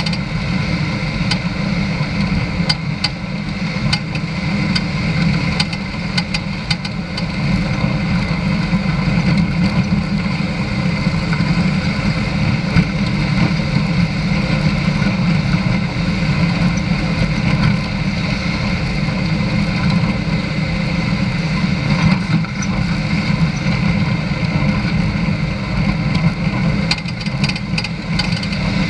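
A vehicle driving along a gravel dirt road: a steady engine drone with road rumble, and scattered sharp ticks and rattles.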